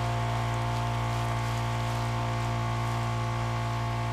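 Honda gasoline water pump engine running at a steady speed, a constant hum with an even hiss underneath.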